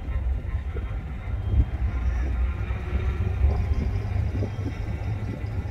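Low rumble of a vehicle driving slowly along a street, with two louder bumps, about a second and a half in and again near the middle.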